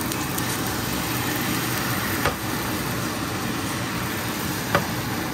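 Egg batter and onions frying in hot oil in a pan, a steady crackling sizzle. Two short sharp clicks about two and a half seconds apart, the second the louder.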